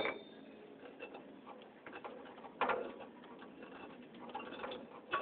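Hands working on a scrap ceiling fan's light fitting: faint ticks and light knocks, with one short clatter about two and a half seconds in.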